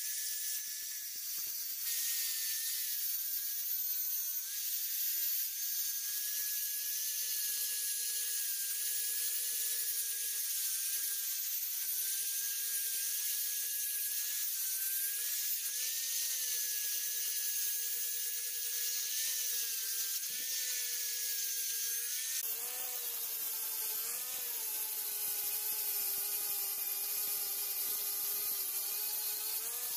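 Angle grinder with a P-100 abrasive disc grinding a rusty steel knife: a steady motor whine with a hiss of grinding over it. About three quarters of the way through, the sound turns rougher and fuller.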